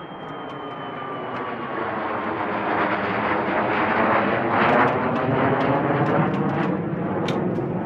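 Jet aircraft engine noise growing louder over several seconds and then holding steady as an aircraft passes, with a faint whistle that falls slightly in pitch near the start.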